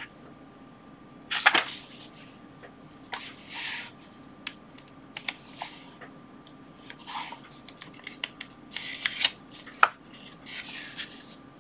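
Paper pages of an old paperback book being turned and pressed flat by hand: a series of short, crisp rustles, with a sharp tick near the end.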